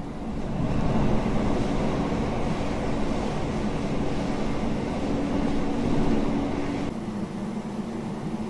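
Electric commuter train running at speed, its wheel-on-rail rumble and motor hum heard from inside the carriage. The noise swells about a second in and drops sharply about seven seconds in.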